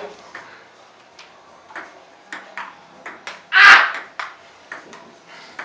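Ping-pong ball clicking off paddles and the table in a rally, a light tap every half second or so. About two-thirds of the way through comes one louder, sharper burst of noise.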